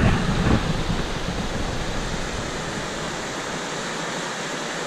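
Mountain stream rushing steadily, an even hiss without breaks.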